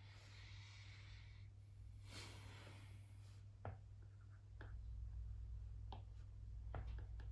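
Faint scratchy writing strokes on a desk surface, then a handful of scattered sharp clicks in the second half, over a steady low electrical hum.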